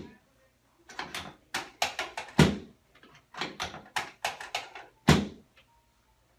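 Chiropractic drop table sections snapping down under quick hand thrusts during a back adjustment, a run of sharp knocks and clicks. Two heavier thumps come about two and a half and five seconds in.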